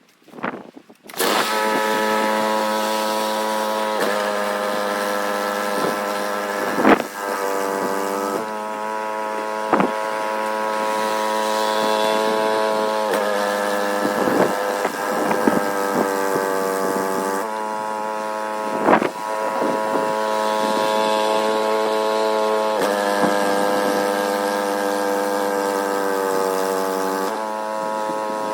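Snowblower's small gas engine starting up about a second in and running steadily at a high, even pitch, with a few sharp knocks along the way.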